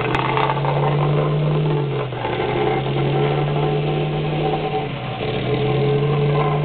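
Vibratory plate compactor with a small engine running as it is worked over a fresh asphalt patch. It gives a steady, loud hum whose pitch drops and rises a few times as the plate is pushed back and forth.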